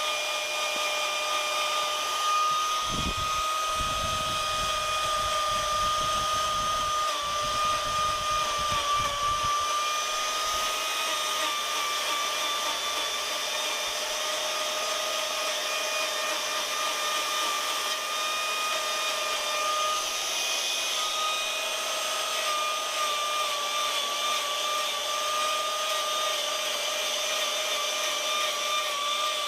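Electric power carving tool fitted with a rotary gouge, running with a steady high whine whose pitch sags slightly now and then as it cuts into wood. Low rumbling knocks come in a few seconds in and stop after several seconds.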